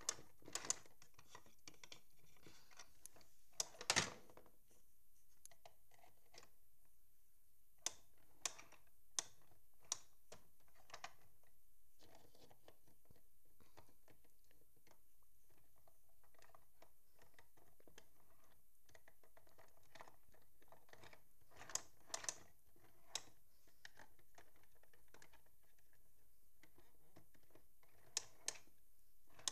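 Littlest Pet Shop plastic toy figures and playset pieces being handled and set down: scattered light clicks and taps of plastic on plastic, with a louder knock about four seconds in and small clusters of clicks later.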